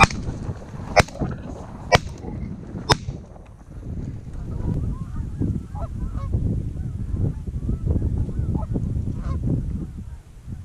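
Four shotgun blasts about a second apart, followed from about four seconds in by repeated goose honking.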